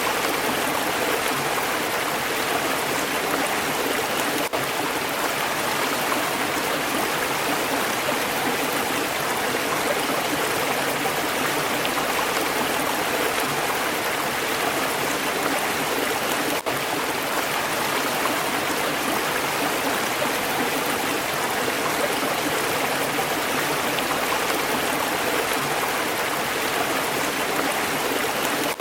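Stream water flowing steadily over a rocky bed, an even rushing and babbling, with two momentary dips in level, about 4 s and 17 s in.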